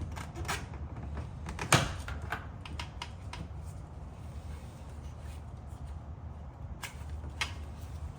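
Scattered small clicks and knocks from hands handling wiring parts and tools, with one sharper knock just under two seconds in and another near the end, over a steady low hum.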